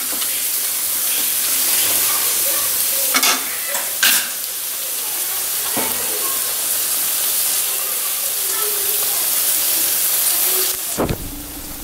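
Chicken pieces in masala sizzling in a deep kadai over a gas flame, with a few knocks and scrapes of a metal ladle against the pan. Near the end there is a low thump and the sizzling drops away.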